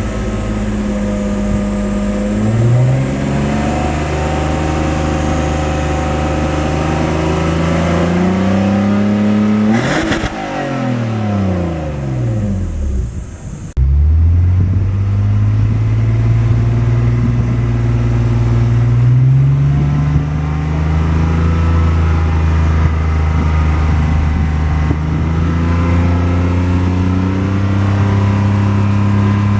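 BMW E46 straight-six engine and exhaust running under load, its pitch climbing slowly for about ten seconds. The pitch then drops away and the sound eases for a few seconds, before coming back abruptly and climbing gently again to a steady drone.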